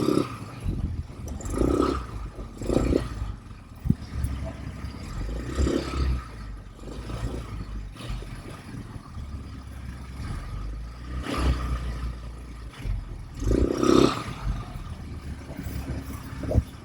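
ATV engine running, surging louder several times, with rattles and scrapes from the machine.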